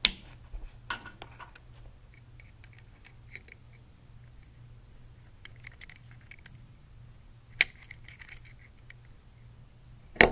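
Sharp clicks and light taps of a 211-2 festoon bulb being worked out of and snapped into the spring-metal clips of a truck dome light housing. The loudest clicks come right at the start, about seven and a half seconds in, and just before the end.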